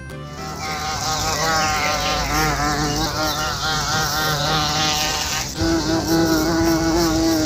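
Asian giant hornet buzzing, wavering in pitch. About five and a half seconds in it changes to a higher, steadier buzz.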